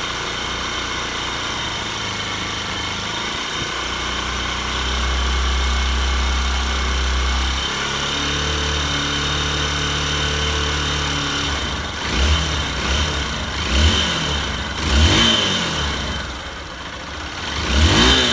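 Honda Bros 150's freshly rebuilt single-cylinder engine idling quietly, then revved in about four short throttle blips over the last six seconds, each rising and falling.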